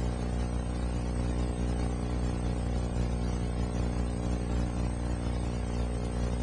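A steady low hum with a stack of even overtones and a constant hiss above it, unchanging in level or pitch.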